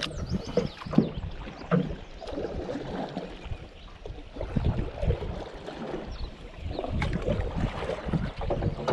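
Canoe being paddled: paddles dipping and pulling through the water with irregular splashing and water washing along the hull, and a few sharp knocks in the first couple of seconds.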